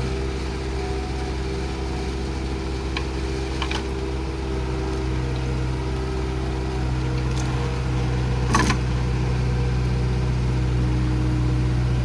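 Heavy machine's diesel engine running steadily at a low, even hum, with a couple of faint clicks and one sharper knock about two-thirds of the way through.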